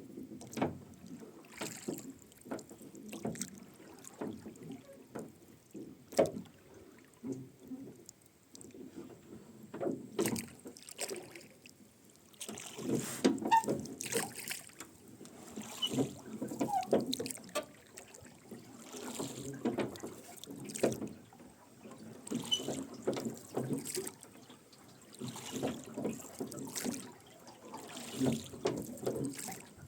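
Rowboat being rowed: oarlocks creaking and knocking and oar blades splashing and dripping with each stroke, a stroke about every three seconds.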